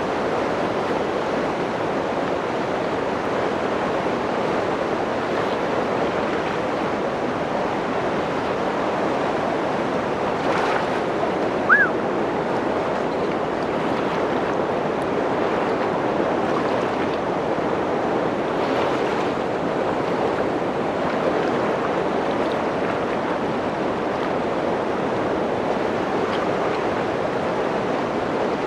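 Webuye Falls on the Nzoia River: a steady rush of falling water. One short high chirp comes a little before halfway.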